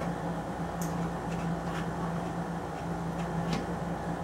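Steady machine hum with a low tone, like a room fan or air conditioner, with several faint light clicks from a rifle scope and its mounts being handled.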